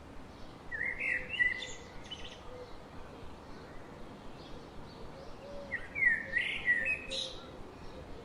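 A songbird singing two short warbled phrases, about five seconds apart, over a steady background hiss.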